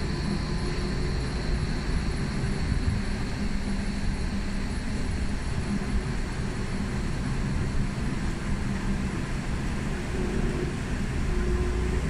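Night-safari tram running, heard from on board: a steady low rumble that grows a little louder near the end.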